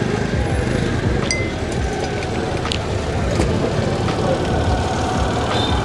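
Busy city-street hubbub: traffic noise and indistinct voices of a crowd, steady and dense, with a few sharp clicks or clinks in the middle.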